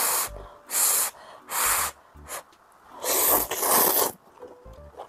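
A person slurping instant noodles in several quick sucking pulls, the longest and loudest about three seconds in.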